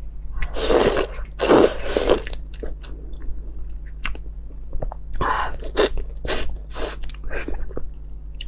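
Close mouth sounds of someone sucking at and biting into the head of a large cooked red shrimp, full of roe, with the shell crackling and wet chewing. Two long slurps come in the first two seconds, followed by a run of short crunches and smacks.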